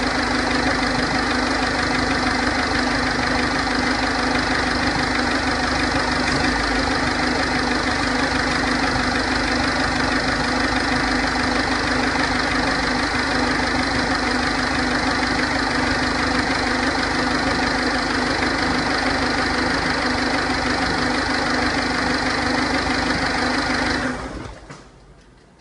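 Ford 1.4 TDCi four-cylinder diesel engine from 2006 idling steadily, carrying a strange noise that the owner cannot identify. The engine sound cuts off about 24 seconds in.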